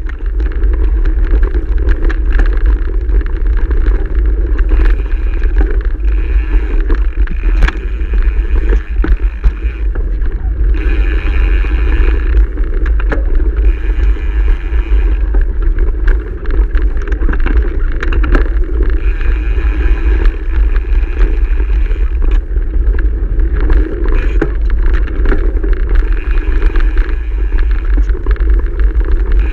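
Mountain bike being ridden fast along a gravel trail: wind buffets the microphone in a constant low rumble, with tyres running on loose gravel and the bike knocking and rattling over bumps throughout.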